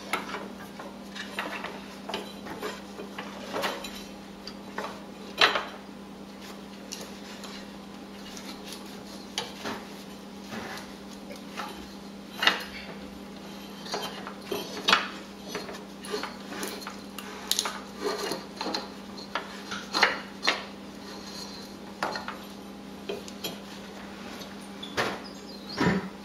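Irregular metallic clinks and knocks as a mower-deck V-belt is worked by foot around the steel pulleys of a Grasshopper SL61 deck. A faint steady hum sits underneath.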